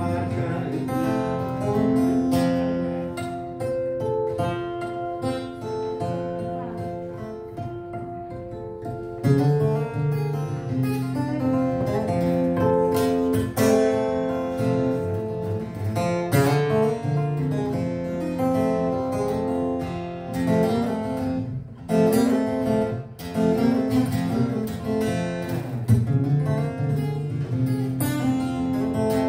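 Solo acoustic guitar fingerpicked in a ragtime-blues style, an instrumental passage with no singing. It drops to a softer stretch a few seconds in and picks up firmly again about nine seconds in.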